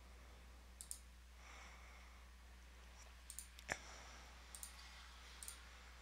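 Computer mouse clicks, mostly in quick press-and-release pairs, about four times, with one louder single tap about three and a half seconds in, over a faint steady low electrical hum.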